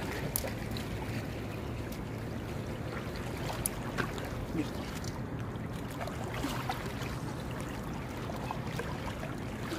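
Small waves of a calm sea lapping against shore rocks, under a steady low rumble of wind on the microphone, with a few sharp clicks around the middle.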